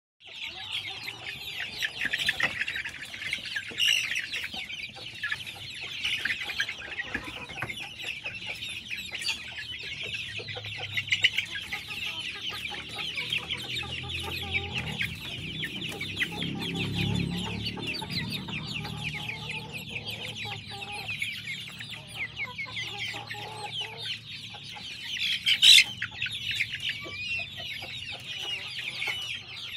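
A flock of kampung (Indonesian native) chickens clucking and calling continuously in a dense chorus as they feed at a trough. A brief, sharper, louder sound stands out near the end.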